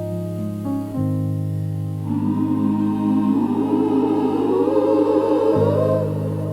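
Gospel music: sustained piano chords, joined about two seconds in by a choir singing a phrase that rises in pitch, then giving way to the piano chords again near the end.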